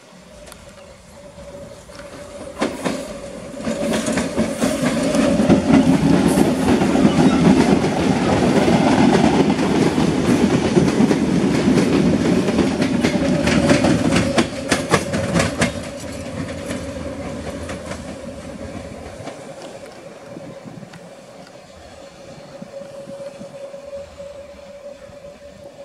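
CPTM Série 1700 Mafersa electric multiple unit passing close by, its wheels clattering rhythmically over rail joints. The sound builds over the first few seconds, stays loud for about ten seconds, then fades as the train moves away. A steady hum holds underneath throughout.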